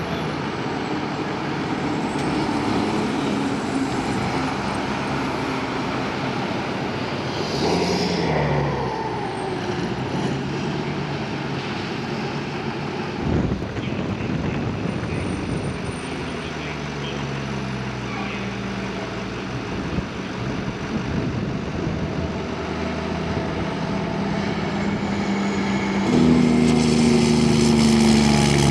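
Heavy fire trucks driving by with their engines running, one after another. A louder truck engine comes in close near the end.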